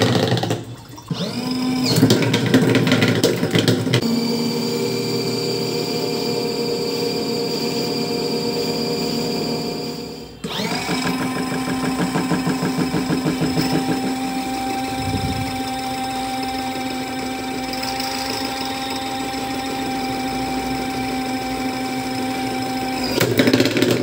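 Small electric motor of a foldable mini washing machine spinning its spin basket with a steady whine, holding a light load of a single sock. It stops briefly about a second in and again about ten seconds in, starting up again each time.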